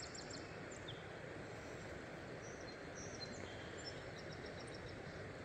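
Faint outdoor river ambience: a steady soft hiss, with a few small bird chirps and two short quick runs of ticking chirps, near the start and again near the end.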